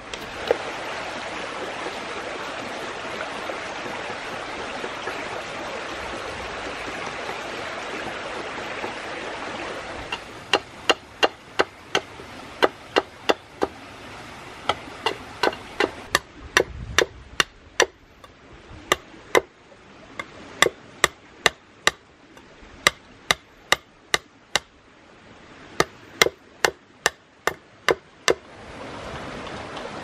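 Knife blade chopping at a green bamboo cup resting on a log: sharp knocks in runs of about two to three a second, starting about a third of the way in. Before them, and again near the end, a steady rushing noise.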